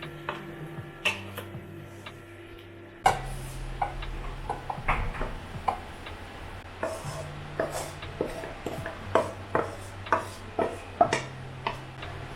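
Irregular light knocks and clicks: a few at first, then busier from about three seconds in, over a steady low hum.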